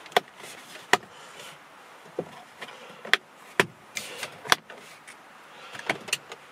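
About seven sharp clicks and snaps, irregularly spaced, from the Silverado's column-shift gear selector being handled after it has popped apart: a loose, newly fitted aftermarket selector being worked back into place.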